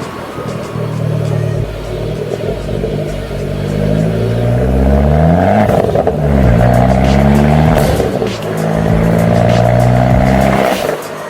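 Abarth 595's turbocharged 1.4-litre four-cylinder engine, heard through a Magneti Marelli R2 'bombardone' aftermarket exhaust. The engine revs up for several seconds, falls sharply about six seconds in, then climbs again before dropping back near the end.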